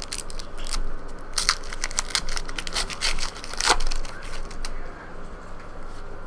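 Trading-card pack wrappers crinkling and tearing as packs are ripped open. A dense run of sharp crackles fills the first four seconds, then it quietens.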